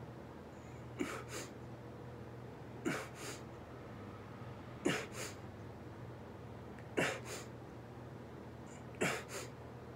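A man breathing hard in time with push-ups: a sharp exhale in two quick puffs, five times, about every two seconds.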